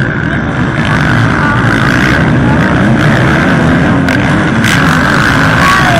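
Several small two-stroke youth motocross bikes running together, a loud steady engine din.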